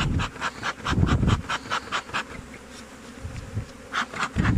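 Honeybees buzzing around an open hive, swelling loud at times, with a fast run of short puffs, about six a second, that stops a little over two seconds in.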